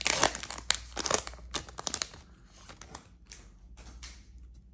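Plastic trading-card pack wrapper being torn and crinkled open, a dense crackling for about two seconds, then fainter scattered crinkles and ticks as the cards are handled.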